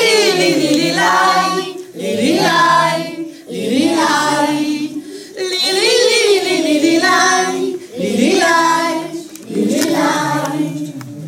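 A small group of women and children singing a Polish Christmas carol together, in short phrases with brief pauses for breath between them.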